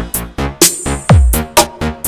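Electronic dance music with punchy beats and a deep bass drop that sweeps downward about a second in.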